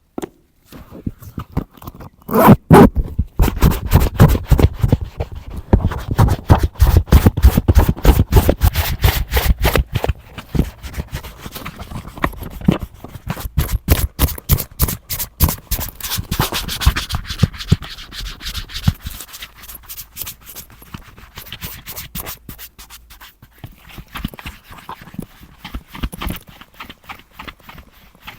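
Rapid scrubbing strokes, several a second, on a leather boot, the kind of scraping rub of a brush working the surface. They are heaviest through the first half and lighter after about nineteen seconds.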